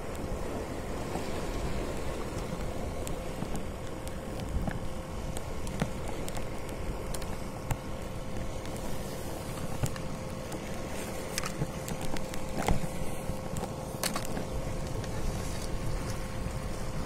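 Wind buffeting the microphone over the wash of the sea, with a steady hum underneath. Several sharp clicks come in the second half.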